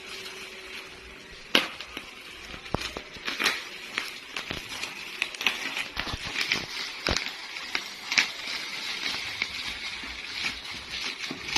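Packaging being torn open and handled during an unboxing: an irregular crackling with many sharp clicks and snaps, growing busier about halfway through.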